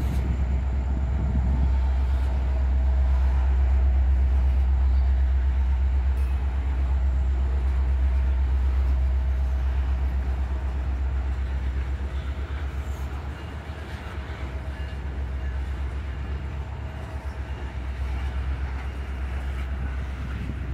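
Norfolk Southern freight train cars rolling past on the rails, a steady low rumble that eases off a little in the second half.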